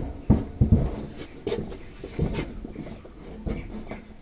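A large caravan wall panel knocking and scraping against the walls and door frame as it is turned in a cramped space, with a series of irregular knocks and thuds, the sharpest right at the start.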